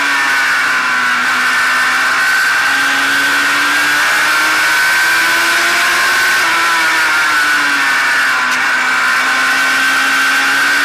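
Race car engine at racing pace, heard from a camera mounted on the car's hood. Its note falls twice, about a second and a half in and again near eight seconds, and climbs back in between.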